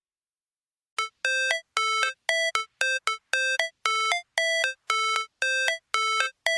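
Music: after a second of silence, a bright, bell-like synth riff of short separate notes, about two to three a second, as the intro to a song.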